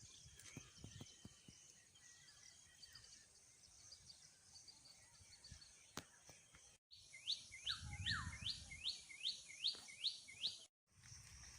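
Quiet outdoor ambience of birds chirping over a steady high-pitched hiss. In the second half a bird gives a run of about nine quick falling notes, about three a second.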